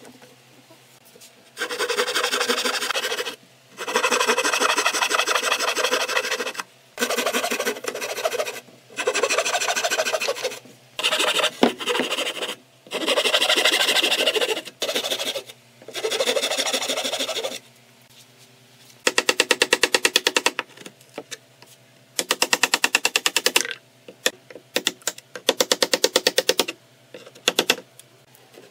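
Hand saw cutting into a wooden frame in several runs of quick back-and-forth strokes. From about two-thirds of the way in, this gives way to short bursts of rapid taps from a wooden mallet striking a chisel.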